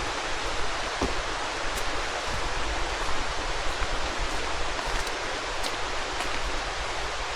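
Steady rushing of a rain-swollen creek, with a few faint ticks over it.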